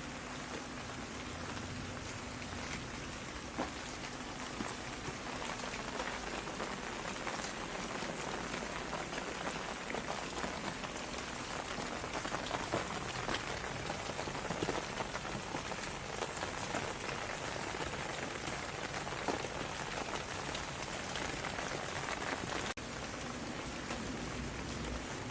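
Steady rain falling on a surface: an even hiss dotted with many individual drops ticking.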